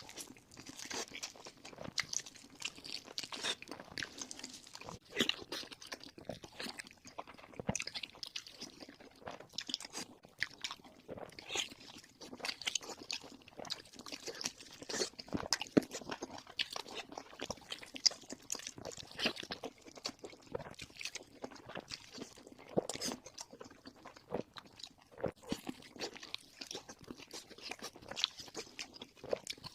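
A person biting and chewing crunchy food, many crisp crunches following one another irregularly.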